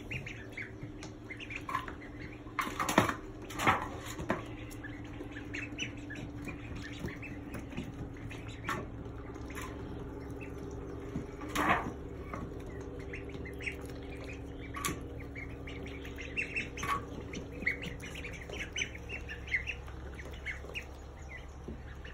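Ducklings peeping in many short, high calls, with a few louder, harsher squawks about three seconds in and again near the middle.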